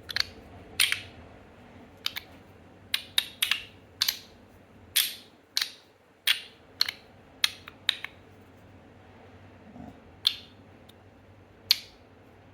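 Stainless steel LINO EDC YULI magnetic slider fidget snapping from side to side: a string of sharp metallic clicks, irregular and often in quick pairs, thinning out after about eight seconds.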